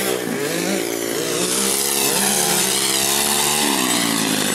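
Dirt bike engines revving, several at once, their pitch rising and falling as the riders work the throttle.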